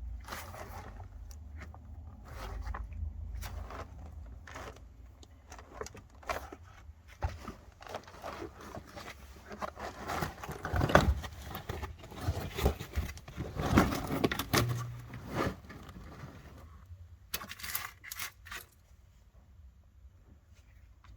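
Clattering, scraping and tearing of car interior parts being pulled loose and handled by hand, a quick run of clicks and scrapes that is busiest around the middle and thins out near the end.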